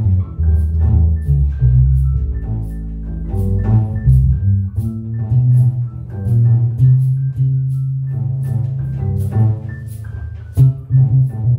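Live instrumental music: a digital keyboard with an organ-like sound plays changing chords over a double bass line, with a long-necked string instrument, and a light, even ticking beat runs through it.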